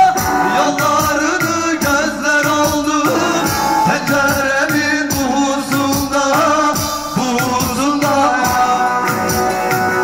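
A man singing a folk song through a microphone over a strummed bağlama (long-necked saz) and a steady drum beat, played live through a PA system.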